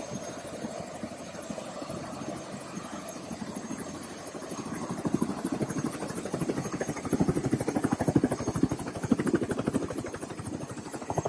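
Helicopter running nearby, its rotor making a fast, even chop that grows louder about halfway through.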